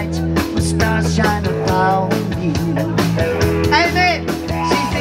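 Live rock band playing loudly: electric guitars and drums, with a male lead singer singing into a microphone.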